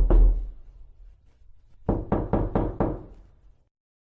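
Knocking on a door: a quick group of knocks right at the start, then after a short pause a run of five knocks about a quarter-second apart, each with a deep thud.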